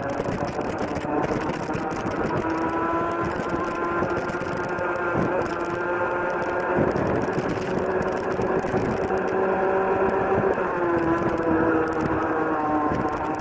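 Rotax Junior Max 125cc two-stroke kart engine at full throttle, pitch rising as the kart accelerates out of a corner, then holding high down the straight. The pitch drops a little about ten seconds in as the kart slows for the next bend.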